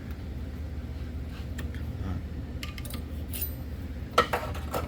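Steel-backed brake pad being forced into a caliper bracket past a binding abutment clip: scattered light metallic clinks and clicks, then a quick run of sharper clinks about four seconds in. A steady low hum runs underneath.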